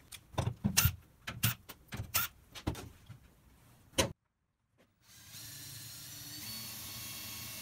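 Scattered clicks and knocks as a metal turntable bearing and small hardware are handled on a wooden plate, then, after a brief break, a cordless drill running steadily as it bores the centre hole through the wooden disc, growing slightly louder near the end.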